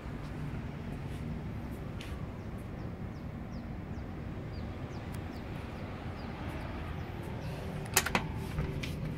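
Steady low background hum, with a few sharp clicks near the end as the glass door is handled.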